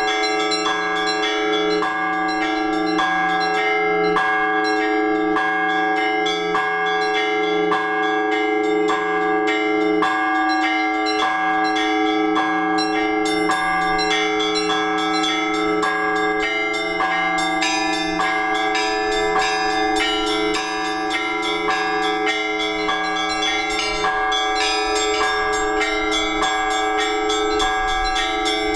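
Orthodox church bells rung together in a continuous peal: smaller bells struck in a quick, steady rhythm over the long ringing of larger bells, calling the faithful to the all-night vigil.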